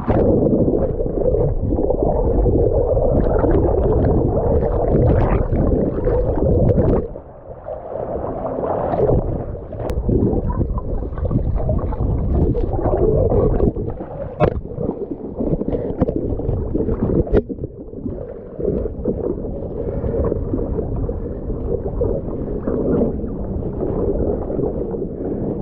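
Jet ski running over open ocean, with wind and water rushing loudly past the camera. About seven seconds in the steady rush drops off abruptly, and the rest is uneven sloshing and gurgling water with a few sharp knocks.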